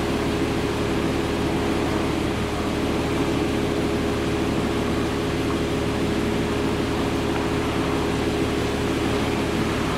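Steady machine hum with an even hiss, holding the same level throughout.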